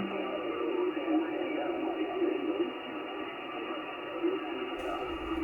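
Shortwave receiver audio on the 20 m band in SSB mode: band noise cut off above about 3 kHz, with faint, garbled voices of distant stations calling. Near the end a brief hiss and low rumble come in.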